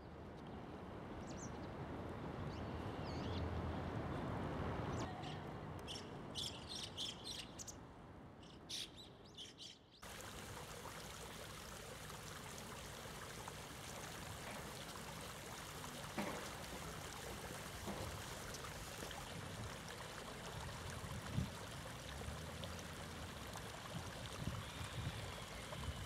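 Shallow river water running over stones, a steady rush, with several short, high chirps of small birds between about six and nine seconds in. About ten seconds in the water sound switches abruptly to a different, even rush.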